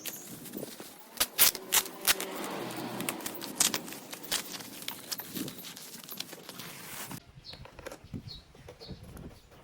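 Packaging being handled and opened: rustling with sharp clicks and taps. About seven seconds in, the handling stops and short high chirps, like a bird's, repeat faintly.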